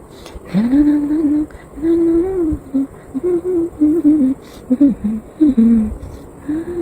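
A woman humming a tune with her mouth closed, in short melodic phrases.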